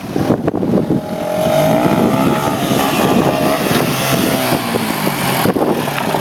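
Small motorbike engine running, revving up about a second in and holding at high revs.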